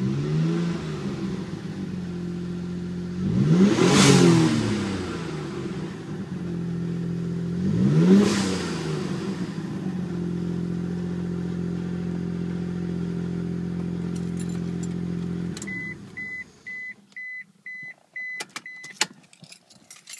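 Mitsubishi GTO twin-turbo V6 idling, an engine with a reported vacuum leak and lifter tick, blipped briefly at the start and revved twice, about four and eight seconds in, then switched off near the three-quarter mark. A car's warning chime then beeps evenly about eight times, with a few sharp clicks and a key jingle near the end.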